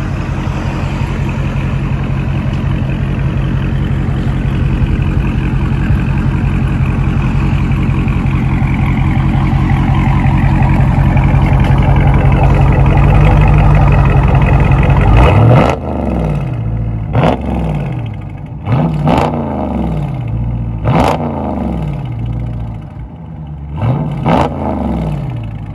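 Dodge Charger Scat Pack's 6.4 L (392) HEMI V8 running through its exhaust, steady and growing louder for about fifteen seconds, then five quick throttle blips, the revs dropping back after each.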